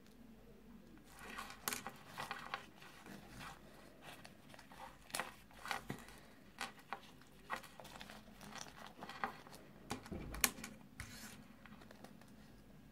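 A small crinkly wrapper being handled and torn open by fingers: a run of sharp crinkles and rustles starting about a second in and stopping shortly before the end, the loudest crackle near the end.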